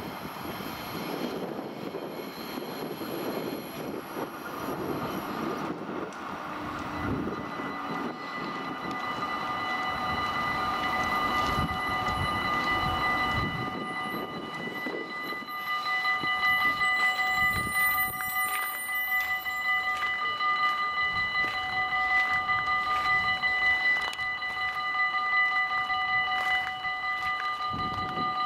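Vintage 1500 V DC electric train running on the rails, a rumbling ride that grows louder. About halfway through, a steady high whine of several tones sets in and holds.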